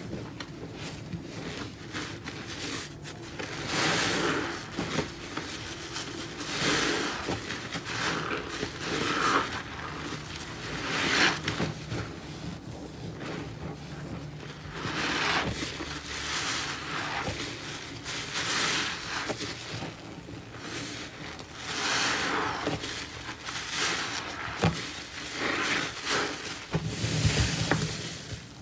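Gloved hands squeezing and kneading a sponge in thick, foamy paste of pine cleaner and Comet powder in a sink, giving wet squelches that swell every two to three seconds.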